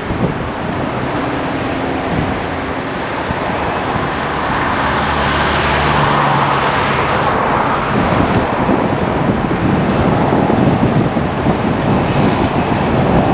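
Jet engines of a Boeing 737 airliner running as it taxis past, the roar growing to its loudest about halfway through as it goes by, with wind gusting on the microphone.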